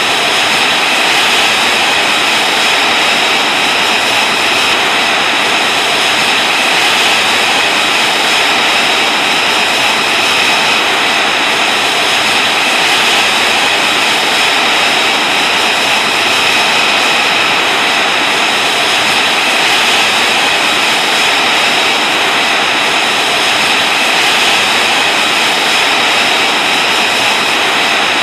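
F-35C Lightning II's single Pratt & Whitney F135 turbofan running on the ground, a loud, unchanging jet noise with a constant high whine.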